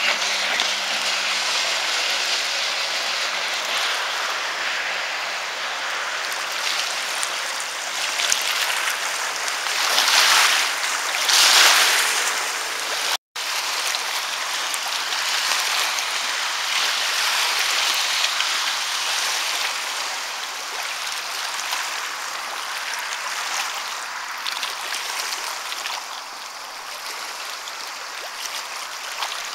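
Steady hiss of small waves lapping on a pebble shore, swelling for a couple of seconds before halfway and cutting out for an instant just after. A distant 250 hp Sea-Doo personal watercraft's engine is faintly heard running at first.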